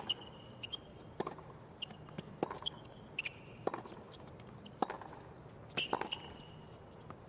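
Tennis rally on a hard court: rackets strike the ball six times, about a second and a quarter apart, and tennis shoes squeak on the court surface between strokes.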